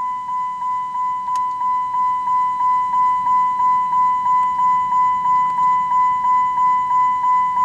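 Electronic warning chime of a car, a single high note repeating rapidly, about three strikes a second, each ringing down before the next.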